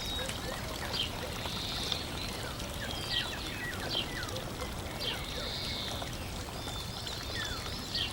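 Steady sound of running water with birds chirping over it: short, quick calls and falling chirps scattered throughout.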